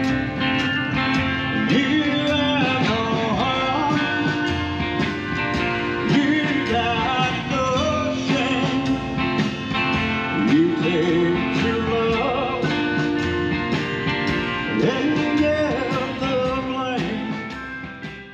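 Live band music from acoustic guitar, upright bass and drum kit, playing steadily, then fading out near the end.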